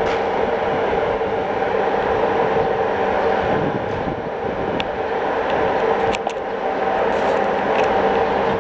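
Serbian Railways class 441 electric locomotive humming steadily as it slowly pulls a passenger train out of the station. The hum holds two steady tones over a rushing noise, with a few sharp clicks about five and six seconds in.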